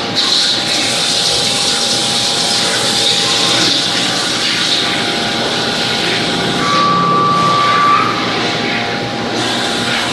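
CNC machining centre running in a machine shop: a loud, steady mechanical whir with a constant hum, and a short high whine about seven seconds in.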